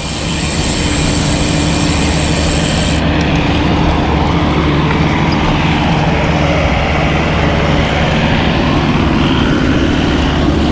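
Wind rushing over an action camera's microphone on a moving road bicycle: a loud, steady rush of noise with a steady low hum underneath.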